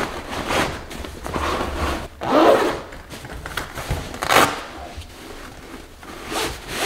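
Fabric storage cover being pulled down over a folded steel-frame collapsible wagon: the fabric rasps and scrapes against the frame in several separate strokes, loudest about two and a half and four and a half seconds in.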